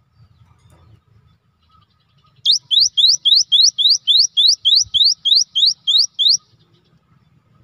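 Cinereous tit (gelatik batu) singing: a fast series of about sixteen rising whistled notes, about four a second, starting about two and a half seconds in and stopping after about four seconds.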